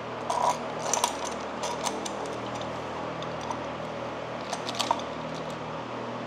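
Light metallic clinks and rattles of a timing chain and its guides being handled and fitted around the cam sprockets of a GM Ecotec 2.0 LNF engine, in bunches about a second in and again near the five-second mark, over a steady low hum.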